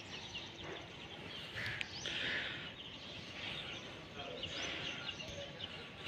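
Faint chirping of small birds, many short high chirps throughout, over steady outdoor background noise.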